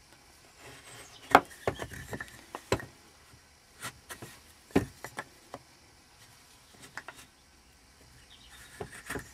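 Marking gauge being drawn along a block of lime wood, its pin scoring the surface in short scratching strokes, with scattered light clicks and knocks as the tool and block are handled and turned.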